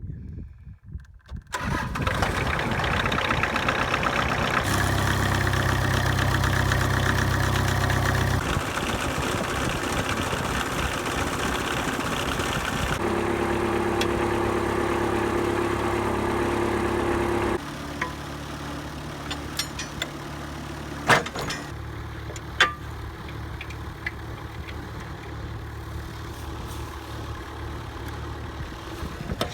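An engine starts up about a second and a half in and runs steadily. Its sound changes abruptly several times and drops to a quieter running level about two thirds of the way through, with a couple of sharp clicks after that.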